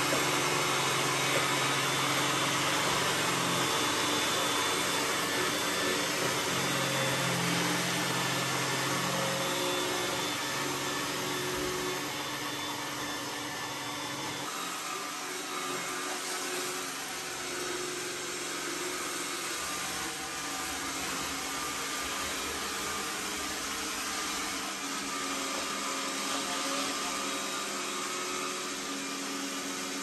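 iRobot Roomba s9+ robot vacuum running: a steady whir of its suction fan and brushes, somewhat quieter from about halfway through.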